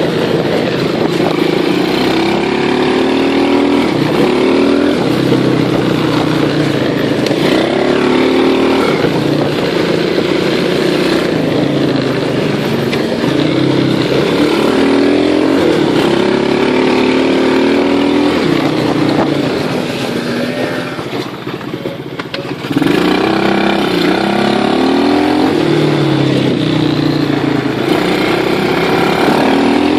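A small engine on a ride keeps revving up in repeated rising sweeps, like pulling through gears. About two-thirds of the way through it eases off and goes quieter for a couple of seconds, then opens up again.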